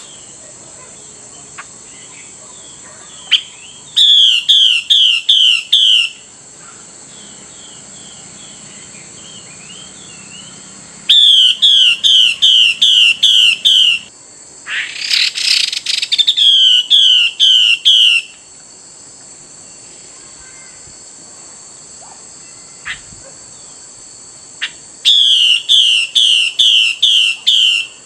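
Female Chinese hwamei calling to a male in four bouts of loud, down-slurred notes, about three a second, each bout two to three seconds long. A short harsh rasp comes just before the third bout. A steady high insect-like hiss runs underneath.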